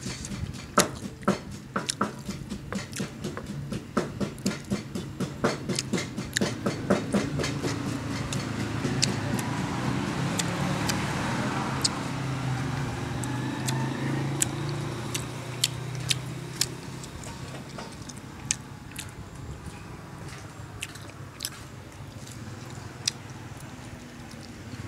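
Close-up chewing and biting while eating fish by hand: sharp wet chewing clicks about two a second through the first third, thinning out later. Around the middle, a low engine hum of a passing vehicle swells and fades.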